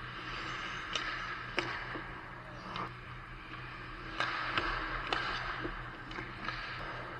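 Ice hockey sticks and puck clacking in a string of sharp hits over a steady scrape of skate blades on the ice, with a low hum underneath.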